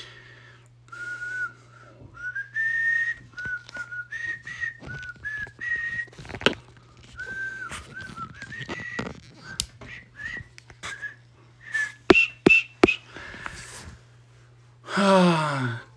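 A man whistling a tune: a string of clear held notes stepping up and down in pitch. Near the end his voice slides steeply down in pitch.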